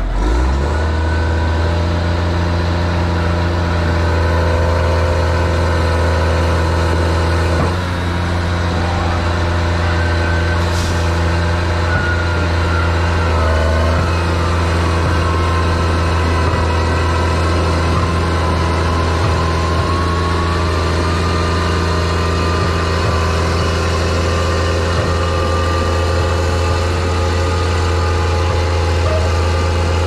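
New Holland T7030 tractor's six-cylinder diesel engine running steadily at low revs while the tractor, hitched to a Beco Carrier hooklift trailer, moves off slowly.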